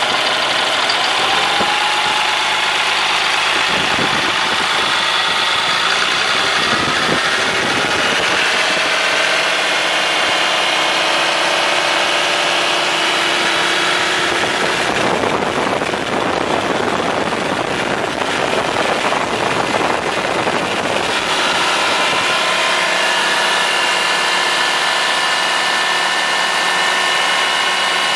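Caterpillar C7 diesel engine idling steadily, heard close up in the open engine bay, with a hissier stretch about halfway through.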